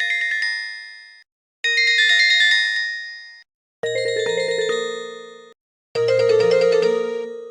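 LG VX5600 Accolade cell phone ringtones: four short electronic melodies of about two seconds each, played one after another with brief silences between them.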